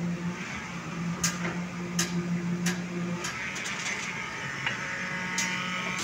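Concrete pump running with a steady low hum while concrete is placed through its delivery hose; the hum drops off about halfway through. Several sharp knocks sound over it.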